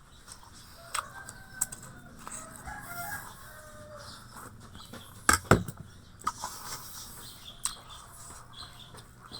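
A rooster crowing in the background, with scattered sharp knocks; the loudest is a double knock about five seconds in.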